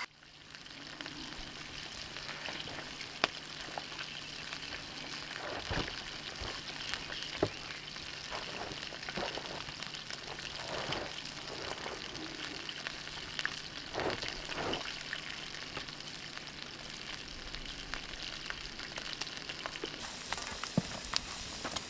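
Fish frying in a pan: a steady sizzle with scattered sharp crackles and pops.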